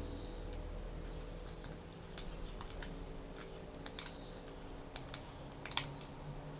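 Small metal fishing tackle, a jig, split ring and assist hooks, clicking and ticking irregularly as it is handled and fitted together, with one sharper click near the end.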